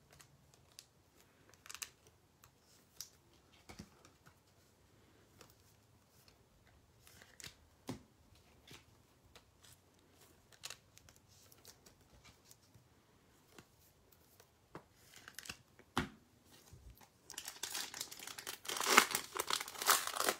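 A few faint scattered clicks and taps, then, about three seconds before the end, a foil-wrapped Panini Prizm basketball retail pack is torn open and crinkled. The tearing is the loudest sound.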